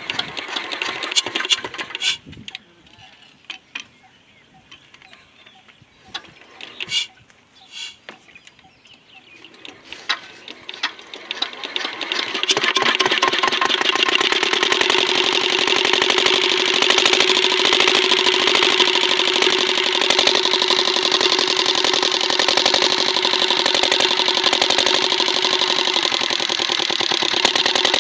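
Kirloskar single-cylinder diesel engine, freshly rebuilt with new piston rings and head gasket, being started: a few clicks and knocks, then it catches about twelve seconds in and runs steadily with a fast, even firing beat.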